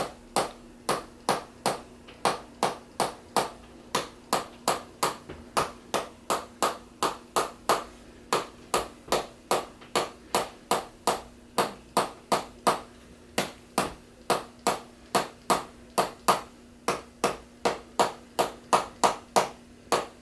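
Steady rhythmic chiropractic tapping on the body, sharp taps at about two and a half a second, with a faint steady hum underneath.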